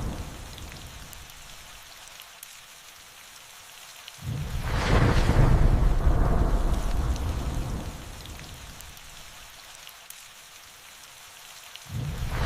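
Steady rain falling through a thunderstorm. A thunder rumble fades out over the first couple of seconds. About four seconds in a sudden thunderclap cracks and rolls, dying away over several seconds, and another begins just before the end.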